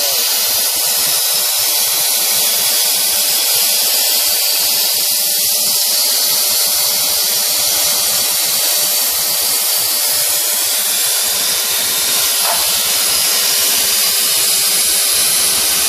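Small high-speed spindle motor of a mini CNC machine running steadily, a loud, even, high-pitched hissing whine.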